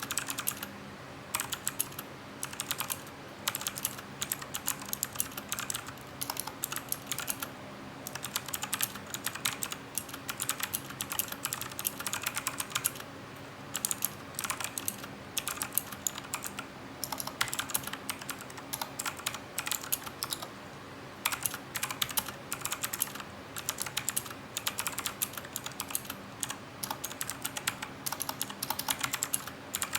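Typing on a Cooler Master CK350 mechanical keyboard with clicky Gateron Blue switches: fast runs of sharp key clicks broken by short pauses.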